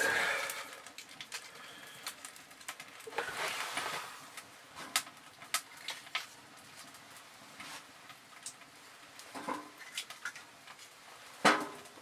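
Split maple and birch firewood being handled and loaded into a small wood stove: rustling, with scattered wooden clicks and knocks and one sharp knock near the end.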